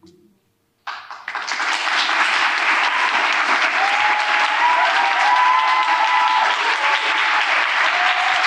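Audience applauding, breaking out suddenly about a second in and continuing steadily, with a few cheering voices over it in the middle.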